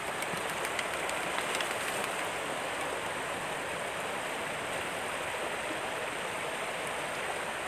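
Steady rushing of a swollen, fast-flowing river.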